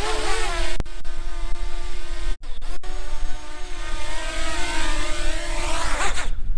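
Small quadcopter drone's propellers whining with a wavering pitch over a low rumble. The sound drops out briefly twice a little past two seconds in, and the pitch rises sharply near the end.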